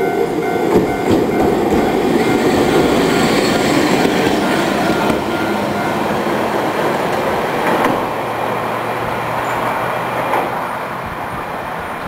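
Hankai Tramway Mo 501-type streetcar running over the rails with a rumble of wheels, while the level crossing's warning bell rings in a quick repeating pattern. The bell stops about halfway through, and the tram's running noise then fades as it pulls away.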